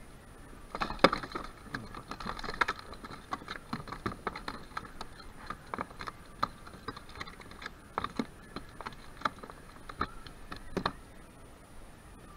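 A landed ladyfish flopping on the plastic floor of a sit-on-top kayak: irregular slaps and knocks, the loudest about a second in.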